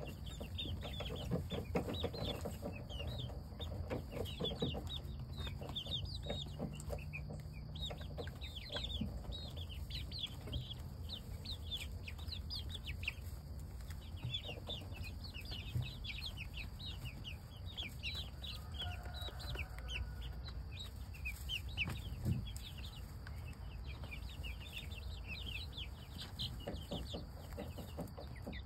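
A small flock of young chickens peeping continuously: a dense run of short, high-pitched cheeps.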